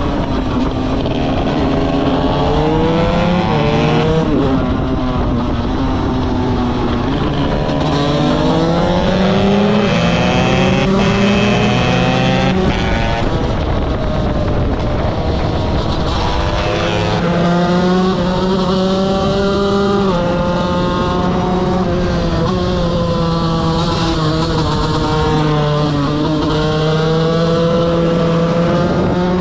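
KTM 125 motorcycle engine at full throttle, its pitch climbing and dropping back with each gear change, then held at high revs for the second half.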